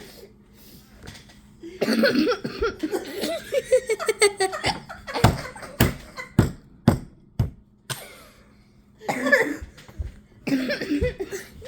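A coughing fit: after a few seconds of voice and laughter, about six sharp, separate coughs come roughly half a second apart, followed by more voices and laughter near the end.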